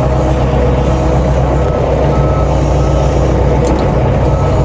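Collins Teleshift 404 farm loader's diesel engine running steadily under load, with its reversing alarm giving short high beeps over and over as the machine backs away from the grain heap.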